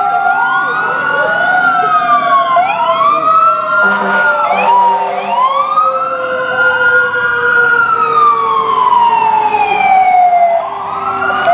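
Several fire-truck and emergency-vehicle sirens wailing at once, their pitches rising and falling out of step with one another.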